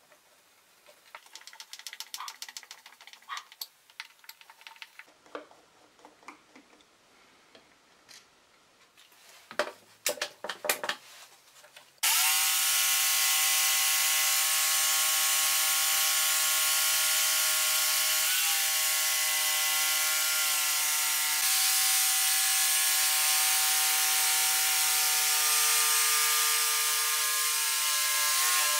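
Scattered light clicks and knocks of hands setting the jig's pivot screw and clamping the workpiece. About twelve seconds in, an electric jigsaw starts abruptly and runs steadily to the end, its blade cutting a curve through solid wood along the arc of a pivoting circle jig.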